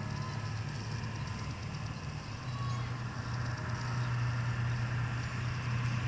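A steady low engine hum, with distant church bells ringing faintly over it. The warning siren is not yet sounding.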